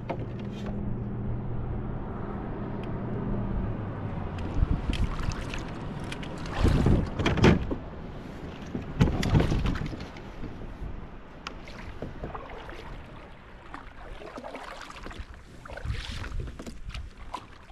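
A loaded fishing kayak being launched from a sandy bank, with hull knocking and water splashing as the paddler pushes off and steps aboard; the loudest splashing and clatter come about seven and nine seconds in. A low steady hum runs through the first few seconds. Scattered paddle strokes and gear knocks follow near the end.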